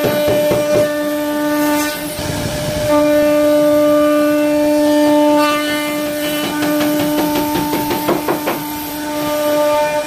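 CNC router spindle running with a steady high whine while its bit carves grooves into a wooden door panel, with crackling chatter from the cut. The whine drops away for about a second around two seconds in, then returns.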